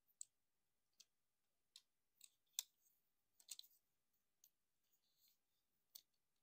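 Plastic joints and parts of a Transformers Optimus Prime action figure clicking and snapping as it is transformed by hand. About ten separate irregular clicks, the sharpest a little over halfway through, with a quick run of clicks just after.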